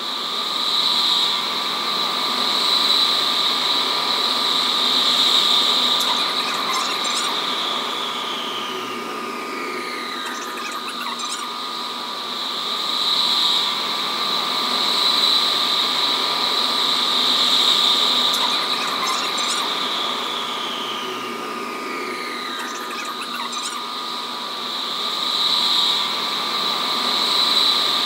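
Qatar Metro train running at speed through a tunnel, heard from inside the front car: a high-pitched whine from the train that swells and fades, with a slow falling glide in pitch twice.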